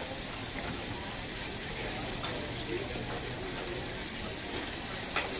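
Steady sizzling of chicken deep-frying in hot oil, with a few faint crackles.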